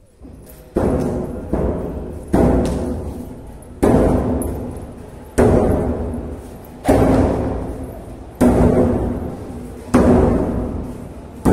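Large temple drum beaten in a slow, even rhythm, about one stroke every one and a half seconds, each stroke ringing on and fading before the next.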